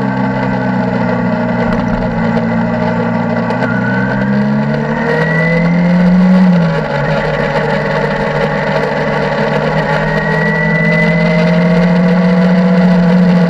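Motorcycle engine running under way while riding. Its pitch rises, drops sharply with a gear change about six and a half seconds in, then climbs slowly again until another drop near the end.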